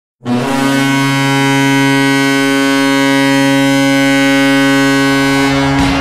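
Columbus Blue Jackets goal horn sounding one long, steady low blast of about five and a half seconds. Near the end it gives way to a sudden burst of noise.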